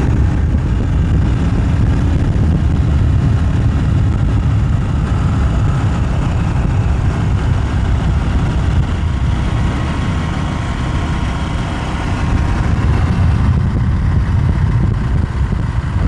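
Wind buffeting the microphone of a camera carried on a moving bicycle: a steady, loud low rumble.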